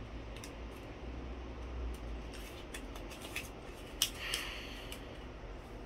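Folded colored paper being handled and opened, with soft crinkles and scratches, a sharp click about four seconds in and a short rustle right after it.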